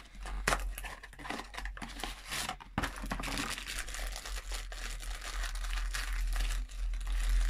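Blind-box packaging being torn open and crinkled by hand: an irregular run of crackling and tearing with small clicks.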